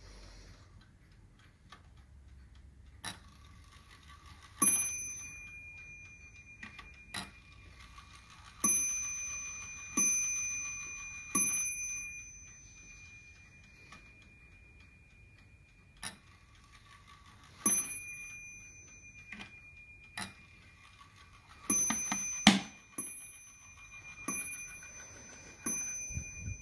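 Koehler German 8-day mantel clock striking as its minute hand is turned by hand: about ten ringing strikes, each fading slowly, some seconds apart and a quick cluster near the end, with lighter clicks of the hand and movement between them.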